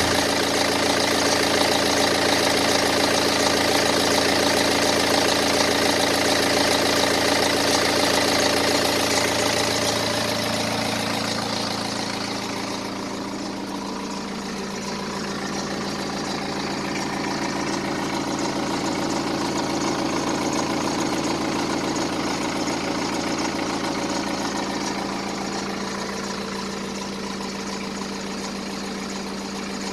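BMW N47 2.0-litre four-cylinder diesel idling, with the steady mechanical noise often blamed on a worn timing chain; on this engine the owner found the chain train was fine. The sound is fuller and brighter for the first ten seconds or so, then settles a little quieter with a changed tone.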